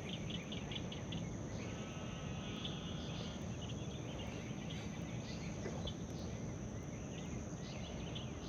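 Pond-bank ambience of insects and birds: a steady high insect drone, a rapid pulsing chirp that stops about a second in, a short buzzing trill, then scattered bird chirps over a low rumble.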